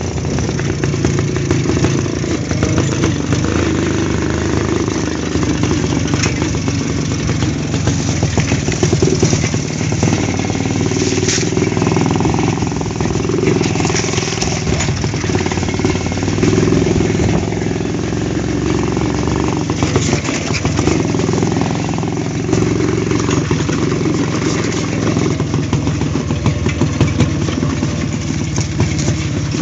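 WSK two-stroke single-cylinder motorcycle engine running while it is ridden over rough forest ground, its note rising and falling with the throttle.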